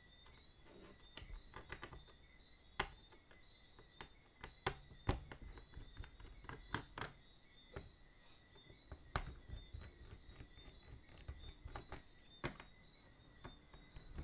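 Irregular light clicks and taps, a dozen or so spread unevenly, with a few sharper ones, as a screwdriver works the screws of a laptop's plastic bottom cover and hands handle the panel.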